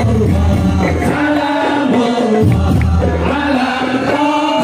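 A man singing a sholawat, an Islamic devotional song, in long held phrases over musical accompaniment with a heavy low beat.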